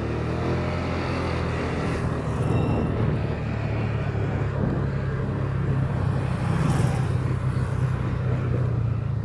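Motorcycle engine running steadily while riding, a low even hum with a steady rush of noise over it.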